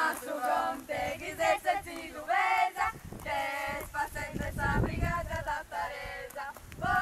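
A song sung by a choir of voices, with held notes, laid over the footage as background music.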